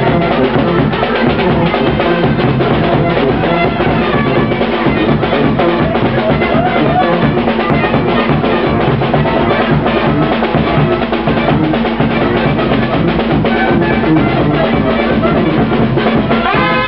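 Brass band of trumpets, clarinet and sousaphone playing loudly over a steady bass drum and cymbal beat.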